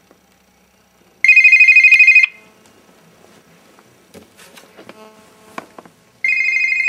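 Flip phone ringing with a trilling bell-style ring: two rings about five seconds apart, the second a little quieter, with faint rustling and handling knocks between them as it is reached for.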